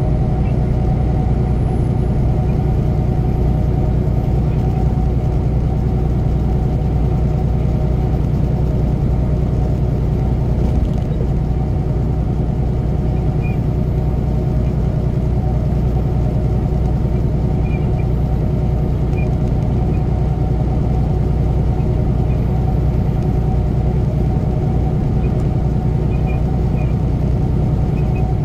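Semi truck cruising at highway speed, heard inside the cab: a steady engine drone with a few constant tones over tyre and road noise.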